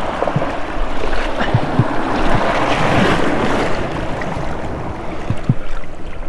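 Surf washing and splashing over jetty rocks, swelling to its loudest about three seconds in, with wind on the microphone and a few soft knocks.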